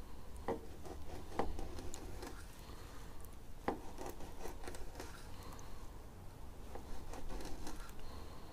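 Knife scoring a skin-on sucker fillet on a plastic cutting board: repeated short cuts down to the skin that break up the Y bones, with scraping and a few sharp clicks.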